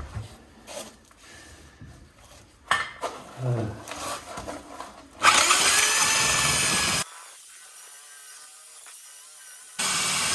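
Power drill with a diamond-tipped core bit grinding into hard brick, in two loud runs: one starting about five seconds in, and one near the end. Before the first run there are scattered knocks and handling noises.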